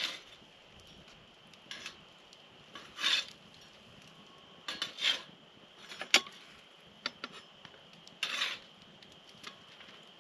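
Metal spatula scraping and clinking against a steel grill grate over a campfire as food is lifted off, in a few separate short strokes with one sharp clink.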